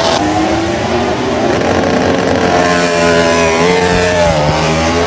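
MotoGP racing motorcycle engines revving, several pitches rising and falling.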